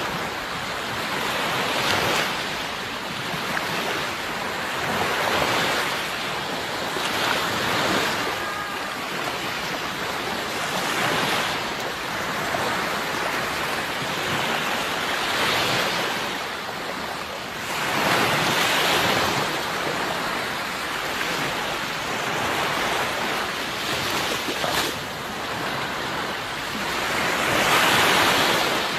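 Sea waves breaking and washing ashore, the noise swelling and falling back every few seconds, the biggest surge near the end.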